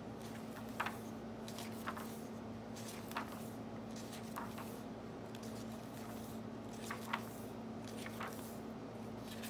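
Pages of a 1917 hardcover book being turned by hand: a short papery flick or rustle every second or so, over a steady low hum.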